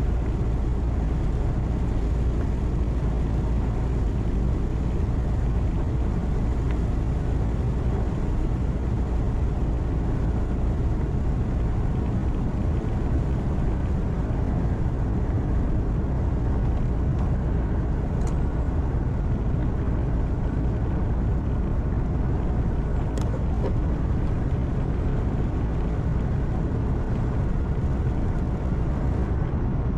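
Steady engine hum and road noise heard from inside a truck cab while driving at speed, with two faint clicks in the second half.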